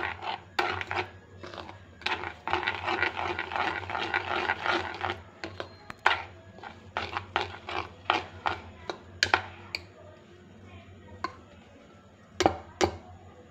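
Steel spoon stirring and scraping a thick, dry cake-batter mixture of flour and cream in a bowl, in quick rhythmic strokes that slow to separate clinks partway through. Two sharp knocks come near the end.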